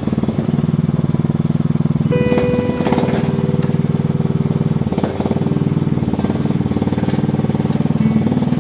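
An engine running steadily at a constant speed, with a brief dip about five seconds in.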